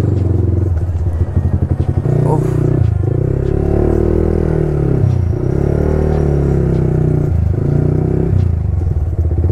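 Yamaha R15 V3's 155 cc single-cylinder engine running as the motorcycle is ridden. Its pitch rises and falls several times with the throttle, with short breaks in the note about two, five and seven seconds in.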